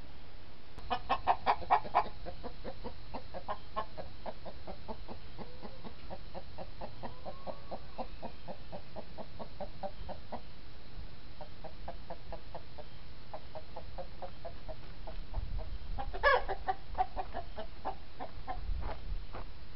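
Chickens clucking in a coop at night, picked up by a game camera's microphone over a steady hiss. A quick run of loud clucks comes about a second in, then long strings of quick, even clucks, and one louder call about sixteen seconds in.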